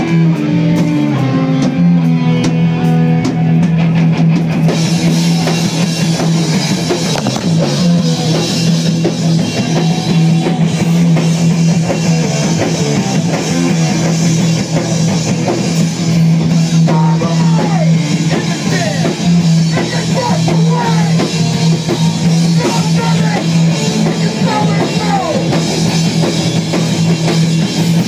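A live heavy rock band playing loud through a bar PA: distorted electric guitar and bass over a drum kit, heard from inside the crowd.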